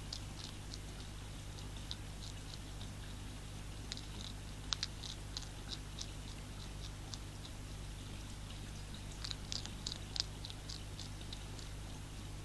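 European hedgehog crunching dry food pellets, in bursts of quick, crisp crunches, over a steady low hum.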